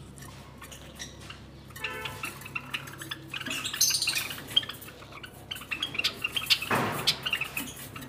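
Java sparrows giving soft, short chirps scattered through, with a brief rustle near the end. This is the quiet call of the Java sparrow, much softer than a lovebird's.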